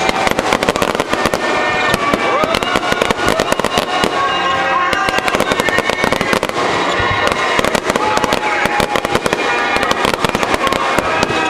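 Aerial fireworks shells going off in a dense, unbroken barrage of rapid bangs and crackles, many bursts every second.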